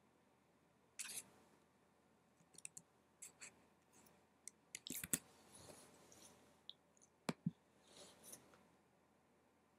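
Faint, irregular clicks of computer keyboard keys being typed, with mouse clicks, some in quick runs of several strokes.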